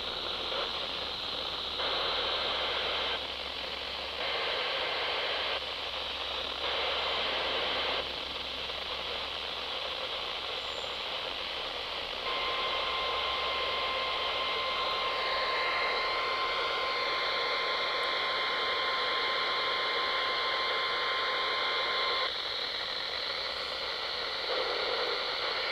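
NOAA Weather Radio Emergency Alert System weekly test heard through heavy radio static. Three short screeching bursts of SAME header data come first, then a steady 1050 Hz warning alarm tone held for about ten seconds. The reception is weak and noisy.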